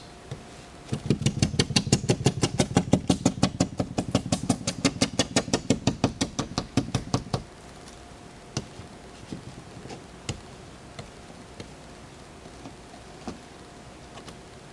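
A dry rag rubbed hard back and forth on a car windshield, heard from inside the car through the glass: a fast, even run of about six strokes a second that starts about a second in and stops about seven seconds in, followed by a few faint clicks. It is wiping leftover repair resin off the glass.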